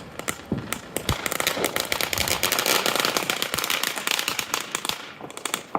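Consumer fireworks crackling: a dense run of rapid pops and crackles that swells about a second in and dies away near the end.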